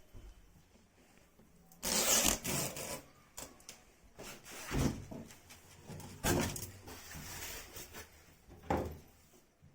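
Handling noise: several separate bursts of rubbing, scraping and knocking. The loudest comes about two seconds in, with others near five, six and nine seconds in.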